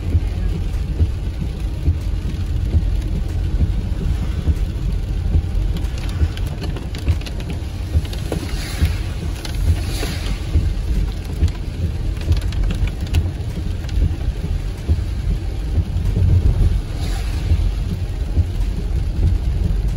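Steady low rumble of road and wind noise inside a moving car, with a few brief hissing swells midway and near the end.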